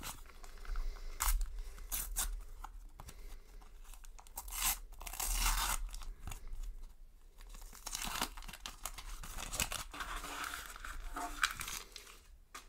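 Panini sticker packet torn open by hand, its wrapper crinkling and rustling in irregular bursts as the stickers are pulled out and handled.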